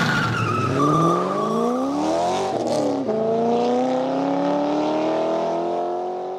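Car engine revving sound effect: the engine notes sweep up and down, crossing about two and a half seconds in, then climb steadily as the revs rise.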